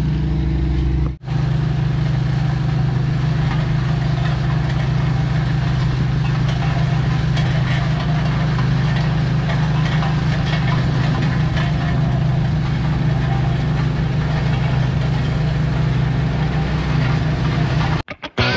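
Engine of a ride-on compaction roller running steadily as it compacts a crushed-rock base, briefly cut off about a second in.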